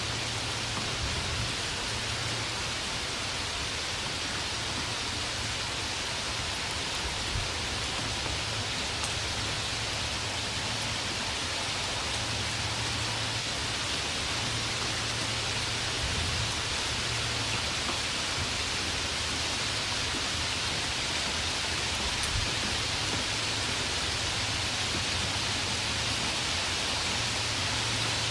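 Steady rain falling, an even hiss with scattered drops and a faint low rumble underneath; no thunder.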